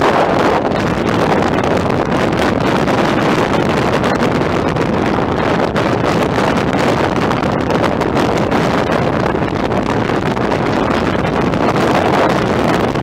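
Heavy wind buffeting the microphone at the open window of a fast-moving vehicle, mixed with the vehicle's road noise, loud and steady.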